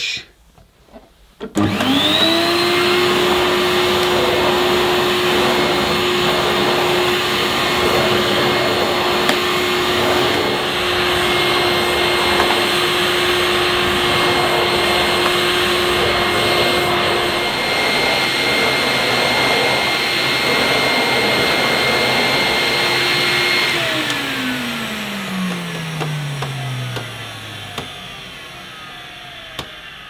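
National Capsule vintage bagless canister vacuum cleaner switched on, its motor whining up to speed on its high setting and running steadily with a rushing airflow as the carpet nozzle is pushed over plush pile carpet. Near the end it is switched off and the whine falls away as the motor runs down.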